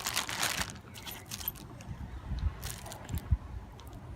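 Rustling and light clatter of packaged wiring harnesses and cables being handled, with a couple of soft thumps as pieces are set down.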